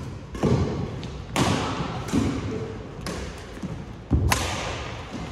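Badminton rally: rackets smacking the shuttlecock about once a second, mixed with heavier thuds of players' feet on the court floor, each hit echoing in a large hall.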